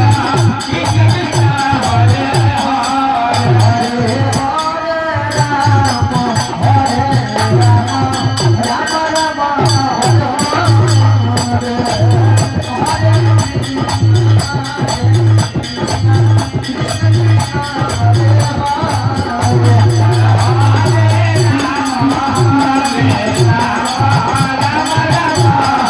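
Devotional kirtan music: a voice singing a wavering, ornamented melody over a steady, pulsing drum beat with percussion.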